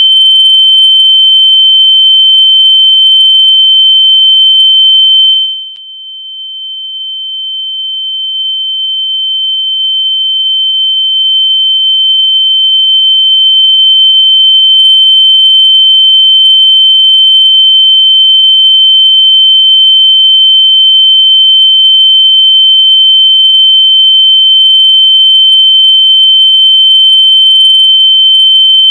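A loud, steady, high-pitched electronic sine tone, played to make lost AirPods sound out so they can be found. Its level drops sharply about five and a half seconds in, then swells back up over several seconds.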